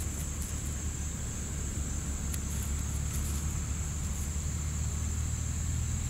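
Steady outdoor ambience while a dime is dug out of loose soil: a constant low rumble and a steady high-pitched buzz, with a few faint scratches and ticks as gloved fingers work through the dirt.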